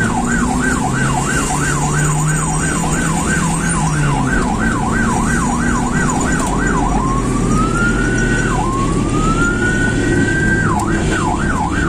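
Ambulance's electronic siren sounding loudly as it drives, heard from inside the vehicle over engine and road rumble. It runs a fast yelp of about three sweeps a second, switches about seven seconds in to two slow rising wails, and returns to the fast yelp near the end.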